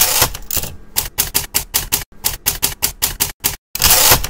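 Typewriter keys clacking rapidly, about six strokes a second, with two longer rasping sweeps, one at the start and one near the end, and a brief pause just before the second.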